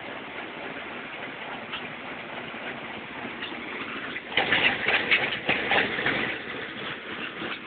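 Corn-flake (emping jagung) flattening machine running with a steady mechanical hum. About four seconds in it breaks into a louder spell of dense rattling and crackling that lasts about two seconds, then settles back.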